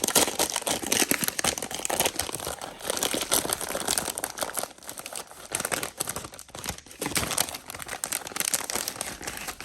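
Booster bundle packaging being opened by hand: irregular crinkling and tearing of wrapper and cardboard, with a couple of brief lulls.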